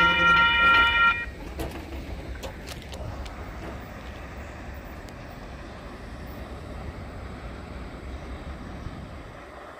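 Grade-crossing warning bell sounding a steady ringing tone that cuts off about a second in, as the gates rise after the train has cleared. A quieter low rumble follows from the freight train moving away down the line.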